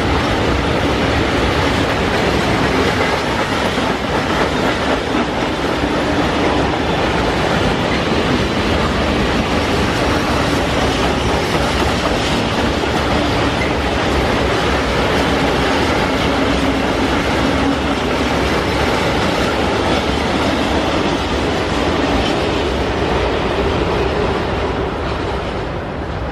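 Freight train of covered hopper wagons rolling past at close range, with a steady noise of wheels on rail. The sound fades over the last couple of seconds as the end of the train passes.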